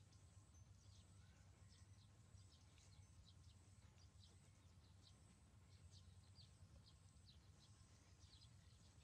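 Near silence: faint, short high chirps scattered irregularly throughout, over a low steady hum.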